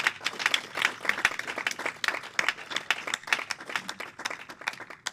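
Applause from a small audience: a few dozen hands clapping unevenly, breaking off suddenly at the end.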